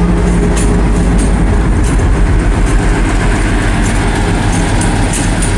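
Colas Rail Class 56 diesel locomotive (56078) passing beneath with a train of coaches. Its engine makes a loud, steady low drone, over which come scattered short clicks from the wheels on the track.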